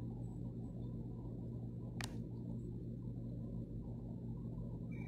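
Steady low background hum with no speech, broken by one short click about two seconds in.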